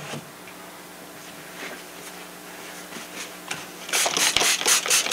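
A faint steady hum, then, near the end, about a second of quick rustling and rubbing strokes as a paper towel is handled while wiping excess glue from a foam wing joint.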